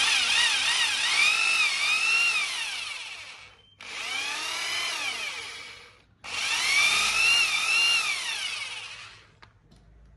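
A Bosch corded rotary hammer drill running free with no load, triggered three times. Each run is a motor whine that wavers up and down in pitch and falls away as the trigger is released. The middle run is shorter and quieter. The drill is single-speed, with no speed control.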